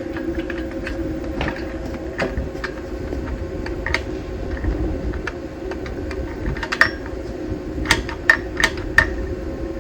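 Scattered light clicks and taps of gate-latch parts being handled and lined up against the post, several in quick succession near the end, over a steady background hum.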